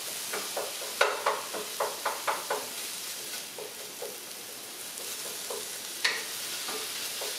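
Turkey sizzling in a frying pan as it browns, stirred with a utensil: a run of short scraping strokes in the first few seconds over a steady sizzle, with sharp knocks about a second in and again near the end.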